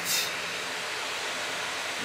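Steady, even background hiss with a faint low hum and no distinct events.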